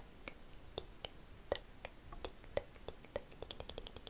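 A string of crisp clicks made right at a microphone, spaced out at first, then quickening to a rapid run of about eight a second near the end.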